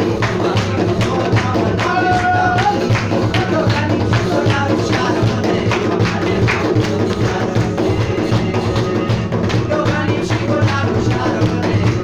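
Live Chitrali folk music: a keyboard instrument holding sustained tones under steady rhythmic hand clapping, with some singing.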